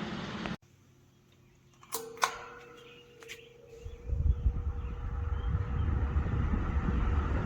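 VENTISOL 20-inch wall-mount fan being switched on: two sharp clicks about two seconds in, a steady motor hum, then from about four seconds the blades come up to speed on low and the air stream buffets the microphone with a low rumble.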